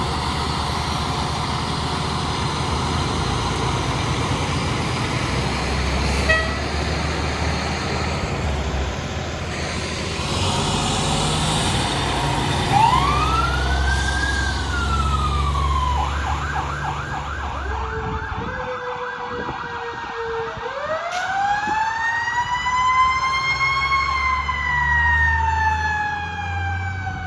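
Fire engines responding with sirens over the low rumble of their diesel engines. About halfway through a siren glides up and back down, then a fast yelp sounds briefly. Near the end a siren winds up and slowly falls in pitch.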